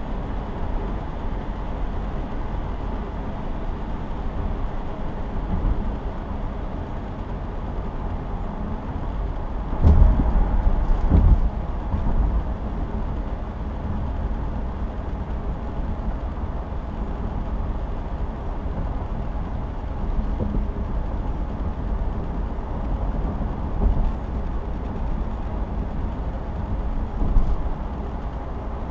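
Steady low rumble of a car driving on a highway, tyre and engine noise heard from inside the cabin. About ten seconds in it grows louder for a second or two with a couple of low thumps, and a few brief knocks come later.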